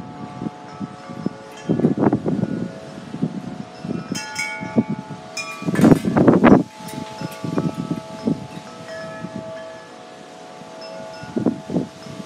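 Wind chimes ringing in gusty wind, many overlapping tones that linger. Gusts of wind rumble on the microphone, the strongest about six seconds in.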